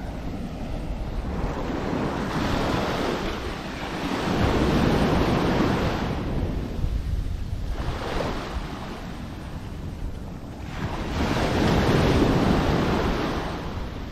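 Small waves breaking and washing up the beach in surges that rise and fall every few seconds, over a steady low rumble of wind on the microphone.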